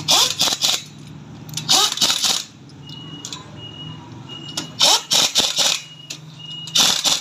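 Pneumatic impact wrench tightening wheel lug nuts, in four short bursts that each spin up and then hammer, a second or two apart, over a steady low hum.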